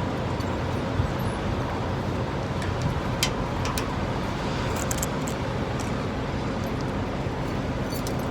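Steady hum of an idling vehicle engine, with a few light sharp clicks about one, three and three and a half seconds in.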